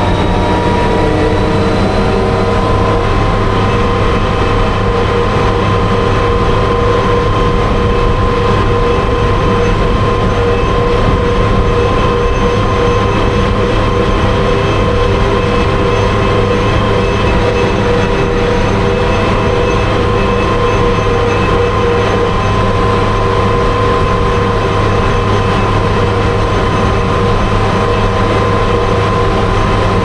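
Daimler Ferret Scout Car Mk.1/2 driving at steady road speed, its Rolls-Royce B60 straight-six petrol engine running under load with a steady whine over a deep rumble. The pitch rises slightly in the first second or two as it picks up speed, then holds even.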